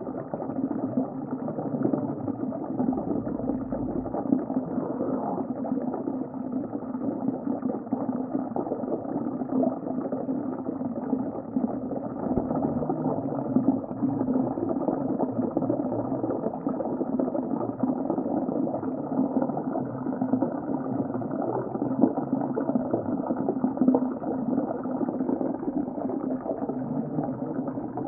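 Underwater sea ambience: a steady, muffled bubbling wash of water.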